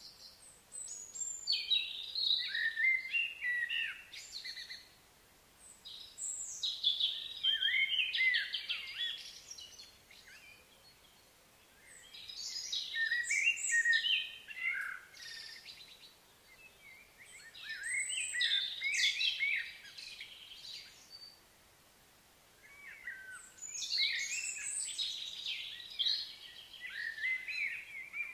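A songbird singing in long, varied phrases of quick chirps and slurred notes, five phrases each a few seconds long with short pauses between them.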